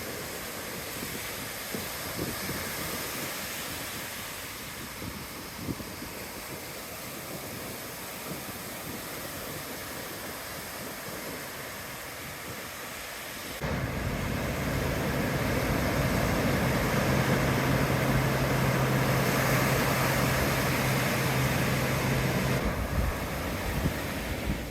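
Ocean surf washing on a beach, with wind on the microphone. About halfway through the sound abruptly turns louder and denser, with a steady low hum under it for several seconds before it drops back near the end.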